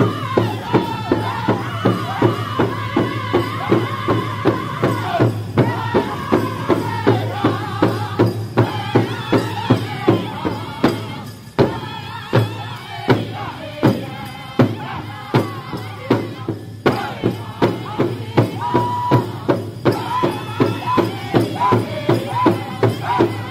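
Powwow drum group: several singers strike one large drum together with padded drumsticks in a steady beat of about three strokes a second while singing high-pitched together. The beat breaks off briefly about halfway, then picks up again.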